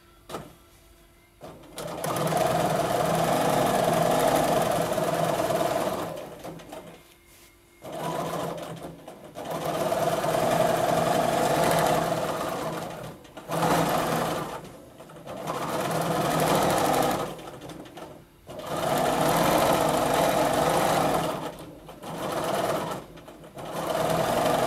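Bernina domestic sewing machine stitching in free-motion quilting, running in about seven separate runs of one to five seconds and stopping briefly between them.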